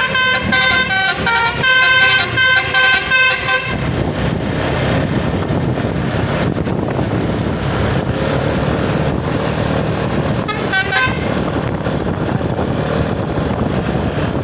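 Bus "telolet" (basuri) musical air horn playing a quick multi-note tune, which cuts off about three and a half seconds in. Then a loud, steady roar of a passing heavy vehicle's engine and tyres, with a short rattling horn blip about ten and a half seconds in.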